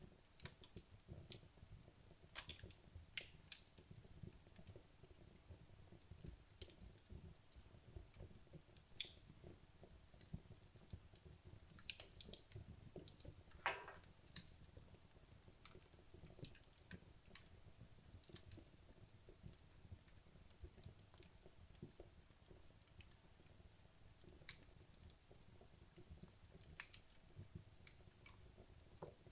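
Wood logs burning in a fireplace: faint, irregular crackling and popping over a low, steady rumble of the flames, with one longer crackle about halfway through.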